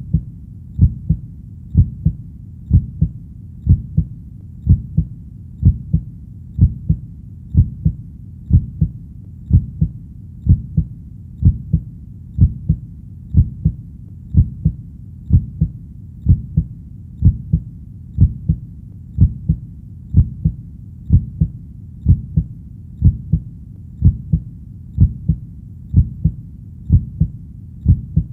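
A steady heartbeat, each beat a low double thump (lub-dub), at about one beat a second.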